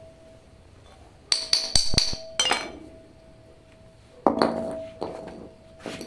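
Cut-off steel pieces of an inverter air-conditioner compressor's shell clanking on a concrete floor, each knock ringing on. A quick run of clinks comes about a second in, and more clanks come a little after four seconds in.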